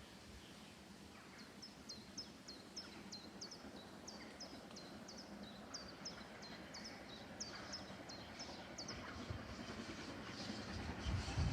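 A small bird calling over and over in short high chirps, about two a second, against quiet station ambience. Near the end a low rumble builds as a diesel train approaches.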